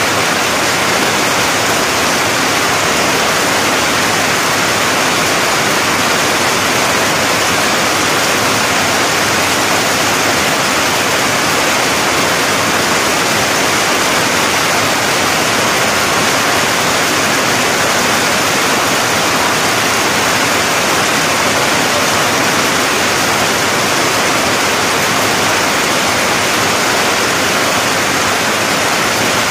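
Heavy rain falling steadily, with runoff pouring off the edge of a corrugated roof: a loud, constant, even rush.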